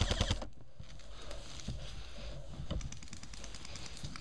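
Airsoft rifle firing on full auto, a rapid burst of about a dozen shots a second that stops about half a second in. After it come only faint scattered clicks.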